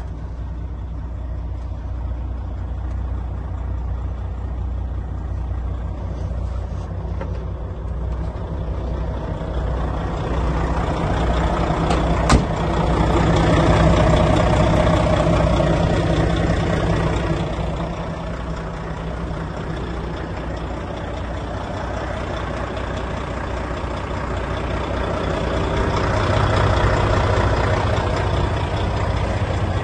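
Volvo FH13 420 tractor unit's 13-litre straight-six diesel idling steadily. It is heard first from inside the cab, then louder from about ten seconds in, from beside the chassis. A single sharp click comes about twelve seconds in.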